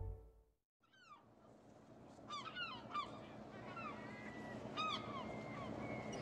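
Intro music cuts off at the start. After a short silence, gulls call again and again, short cries sliding down in pitch, over a faint steady hiss of harbour ambience.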